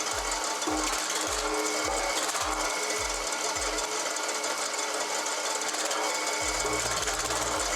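Wood-cutting machine running with a fast, steady mechanical clatter. Under it, background music with a low thudding beat about twice a second, which stops about four seconds in and is followed by a held bass from about six and a half seconds.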